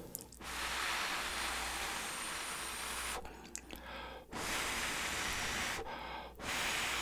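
A man slurping instant ramyeon noodles off chopsticks: a long slurp, then two shorter ones, with brief pauses between.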